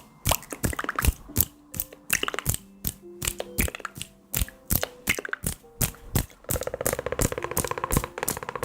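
ASMR trigger sounds: sharp taps and cracks, two or three a second, over soft sustained background music notes, turning into a quick run of fine scratchy ticking in the last couple of seconds.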